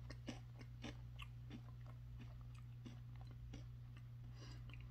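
Faint crunching of a wavy potato chip (Lay's Wavy Hickory BBQ) being chewed with the mouth closed: small irregular crunches, a few a second, strongest in the first second and thinning out, over a low steady hum.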